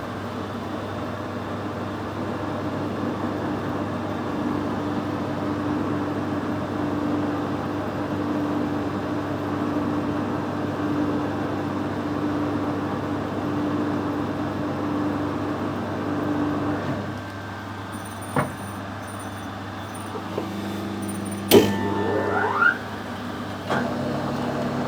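Metal lathe running steadily with a held tone while drilling a hole in the workpiece, then stopping about 17 seconds in. Scattered clicks follow, then a sharp knock and a short rising whine.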